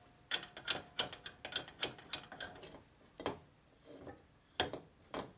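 Irregular metallic clicks and clinks of valve springs, retainers and keepers being handled during cylinder head assembly, thicker in the first couple of seconds, with a few louder clacks later on.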